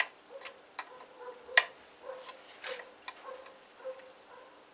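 Irregular metallic clicks and clinks as an oil pressure sensor is screwed into the oil filter adapter, with the sharpest click about a second and a half in.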